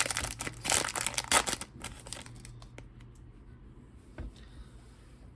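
A Yu-Gi-Oh booster pack wrapper crinkling and tearing as it is opened, loudest for about the first two seconds. Quieter handling follows, with a single light tap about four seconds in.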